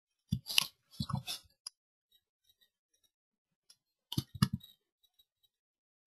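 Clicks of a computer keyboard and mouse in two short bursts, one near the start and one a little past the middle, with quiet between.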